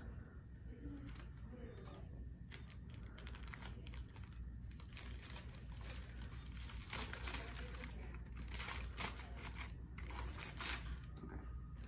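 Paper and plastic packaging of a Foley catheter kit being handled and unwrapped: irregular crinkling, rustling and small clicks, busier and louder in the last few seconds.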